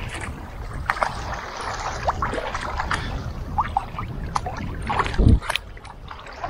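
Kayak paddle strokes splashing and choppy water slapping and lapping against the kayak's hull, over a steady low rumble of wind. A heavier thump against the hull a little past five seconds in is the loudest sound.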